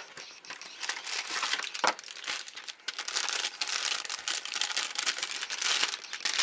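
Thin plastic packaging bag crinkling and rustling as a phone case is slid out of it and handled. There are sharp clicks at the start and about two seconds in, from the cardboard box being opened.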